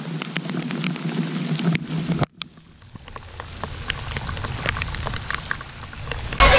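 Steady rain with many individual drops striking sharply close by. The sound drops out briefly a little over two seconds in, then the rain returns.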